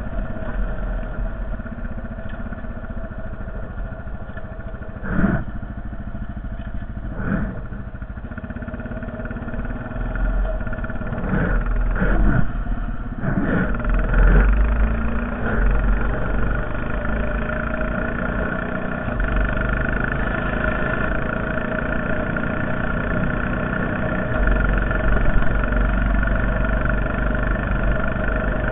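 Honda Foreman 450 ES ATV engine running steadily while plowing snow. There are single knocks about five and seven seconds in, and a cluster of knocks around twelve to fourteen seconds in as the engine gets a little louder.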